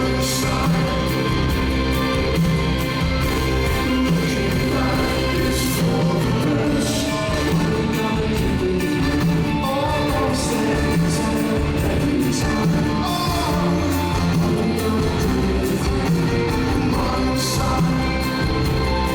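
Live rock band playing with a sung vocal line and a steady beat, heard loud from within the audience of a large hall.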